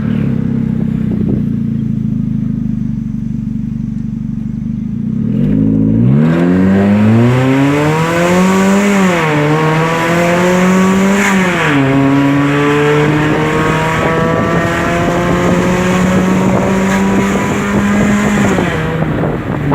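Chevrolet Cruze engine with an automatic gearbox and an aftermarket exhaust diffuser, its exhaust droning loud. It runs low and steady, then about five seconds in the car accelerates hard. The note climbs, dips twice as the automatic shifts up, then holds a steady drone before easing off near the end.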